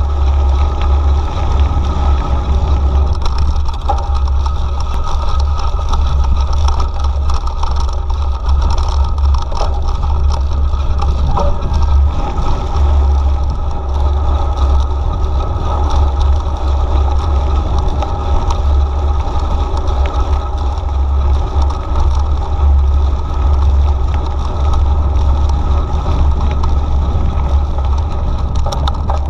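Steady low rumble of wind on the microphone and tyres rolling on a gravel path, from a mountain bike ridden at speed, with scattered light clicks and rattles from the bike.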